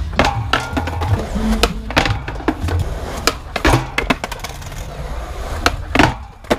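Skateboard wheels rumbling over concrete, with a series of sharp clacks and knocks from the board as a trick is popped and landed.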